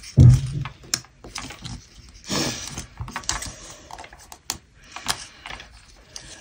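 Handling noise as an EarPods cable and its Lightning connector are worked out of a paperboard packaging insert: a thump about a quarter second in, then scattered sharp clicks and a paper rustle about two and a half seconds in.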